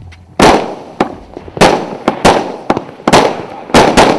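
A 49-shot, 0.8-inch-calibre firework cake firing in quick succession: about ten sharp bangs, roughly two a second and some in close pairs, each followed by a short echoing tail.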